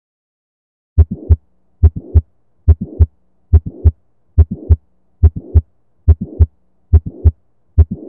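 Recorded heartbeat, about 70 beats a minute, starting about a second in: each beat a loud first heart sound, then a click and a short rushing systolic murmur running up to the second heart sound.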